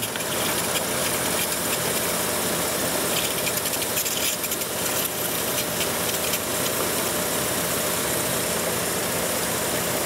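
Jeep 3.7-litre V6 idling with a steady hiss of air being drawn in at a leaking O-ring in the EGR tube. This is a vacuum leak that raises the idle speed. Water is trickling over the leaking joint.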